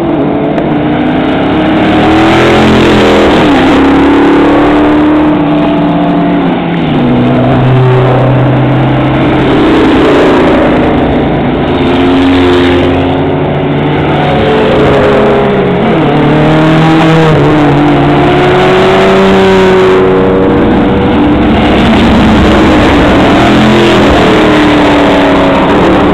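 Several race cars pass one after another at close range. Their engines are loud and revving, and the pitch rises and then drops as each car goes by.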